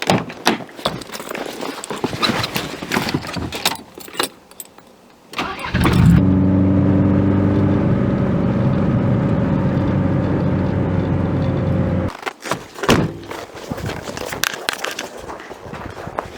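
Clattering knocks and rattles, then from about six seconds in a lawnmower engine running steadily for about six seconds, which starts and cuts off abruptly. More clattering follows.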